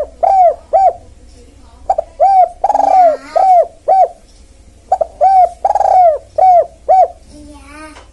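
Spotted dove (tekukur) cooing in repeated 'kuk-kuk' phrases of four or five short coos, each note rising and falling in pitch. The phrases recur about every three seconds. This is a luring call for drawing in wild spotted doves.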